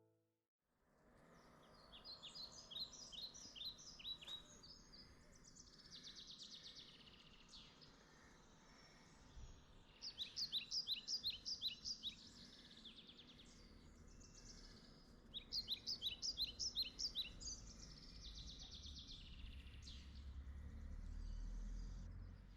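Songbird singing faintly: three bouts of quick, high chirping phrases with softer trills between. A low rumble rises near the end.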